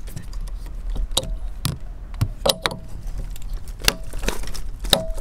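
DD26 steering stops, blue snap-on clips, being snapped onto and off an outboard's hydraulic steering: about five sharp clicks spread over a few seconds as they lock in place and come off.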